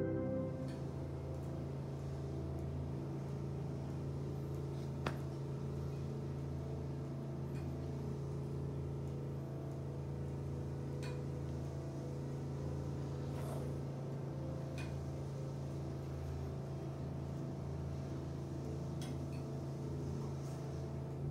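Steady low hum of room noise, with a few faint clicks scattered through it, the sharpest about five seconds in.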